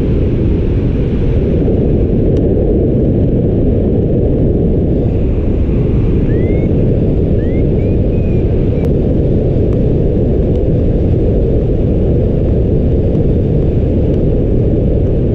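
Steady wind rushing over the camera microphone in paragliding flight, a loud low rumble that stays level throughout. A few faint short rising chirps can be heard about halfway through.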